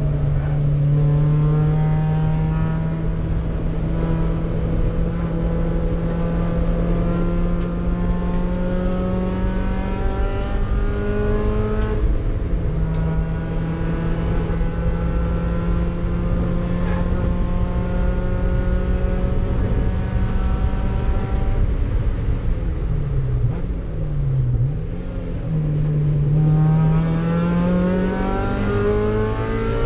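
Mazda Miata race car's four-cylinder engine heard from inside the cockpit, pulling under throttle with its pitch climbing steadily. It drops sharply at an upshift about twelve seconds in and climbs again. Around twenty-three seconds the revs fall and jump in quick dips as it brakes and downshifts, then the engine rises steeply as it accelerates hard near the end.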